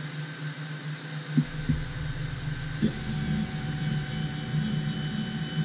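CNC machine's Z-axis stepper motor driving the laser head down toward its focal point. A click comes about a second and a half in, then a steady motor hum with a thin whine on top, over the steady hum of fans.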